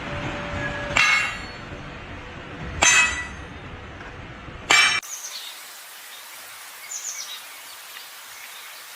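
Three sharp clinking impacts with a bright ring, a little under two seconds apart. After them the sound cuts to a quieter background with a few faint high chirps.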